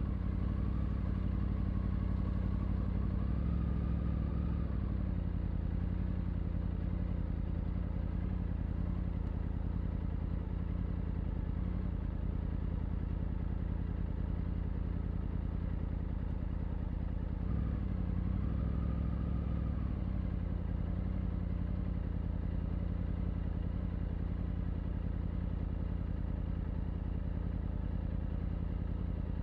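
Triumph Tiger 900's three-cylinder engine and exhaust running under way. The engine note is heavier for the first few seconds and again briefly about two-thirds of the way through, and steady in between.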